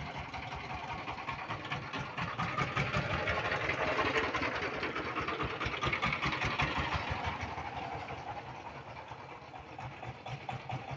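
Single-cylinder Changfa 1115 22 hp diesel engine of a motor van running as the van drives past, growing louder to about the middle and then fading as it pulls away.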